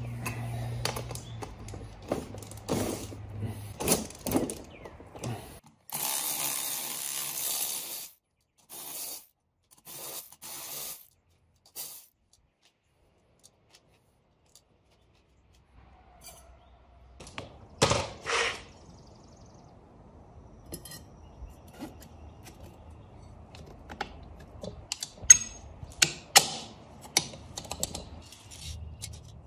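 Hand-tool work on a motorcycle rear sprocket: socket tools clicking as the sprocket nuts are loosened, and metal clinks and clanks as the steel sprocket and its nuts are lifted off and set back on the wheel hub. A two-second rushing noise comes about six seconds in, two loud clanks come a little past halfway, and a run of sharp metallic clicks comes near the end.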